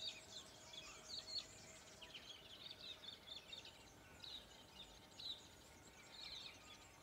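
Faint outdoor birdsong: short, high chirps and calls scattered throughout, over a faint steady hum.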